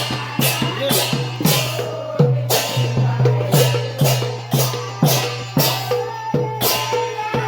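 Sylheti dhamail folk song music with drums and a steady beat of sharp percussive strikes about twice a second over a low sustained drone.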